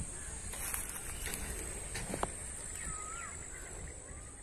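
Rural evening ambience: birds calling with short, curving whistled notes over a steady high-pitched insect drone and a low rumble. A single sharp tick about two seconds in.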